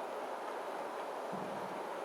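River water flowing, a steady even rushing.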